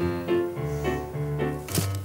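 Short instrumental music cue: a melody of short held notes over a bass line, ending with a sharp cymbal-like hit just before it stops. It is the jingle played when a performer picks up the game's 'magic microphone' prop.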